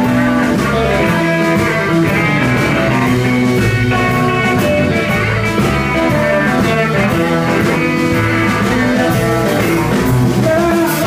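Live electric blues band playing an instrumental passage: electric guitars over bass and drums, with a steady beat.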